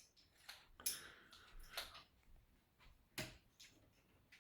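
Near silence broken by a few faint, short clicks spaced irregularly about a second apart.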